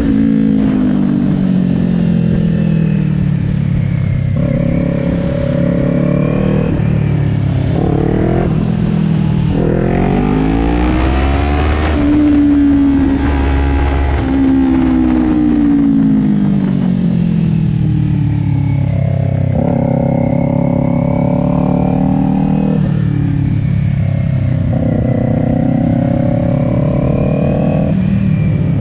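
Kawasaki Ninja 400 parallel-twin engine heard from on board while riding. The engine note climbs under throttle and drops in short steps at the gear changes. About halfway through it falls away as the throttle is closed for a corner, then it climbs again.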